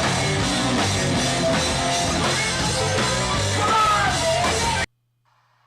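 Live rock band playing loud, dense music with drums and electric guitars, cutting off abruptly near the end into near silence.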